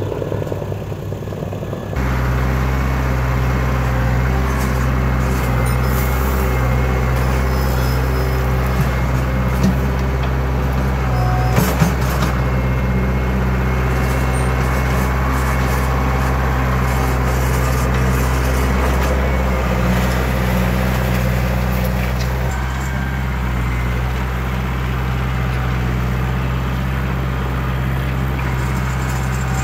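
Backhoe's diesel engine running steadily under work, louder from about two seconds in, with a few sharp knocks and clanks around ten to twelve seconds in.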